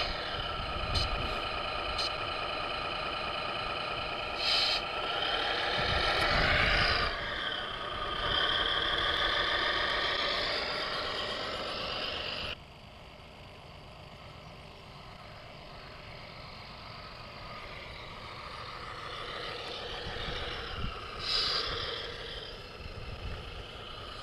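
Simulated diesel engine sound from the RC models' Servonaut sound modules, played through small speakers: a steady engine note that revs up and falls back, then drops suddenly to a quieter engine note about halfway through.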